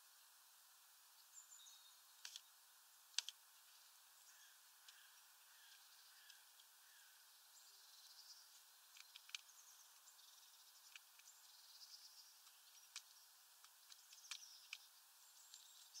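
Faint, high chirping of small birds through most of the stretch, with scattered sharp clicks and taps. The loudest click comes about three seconds in.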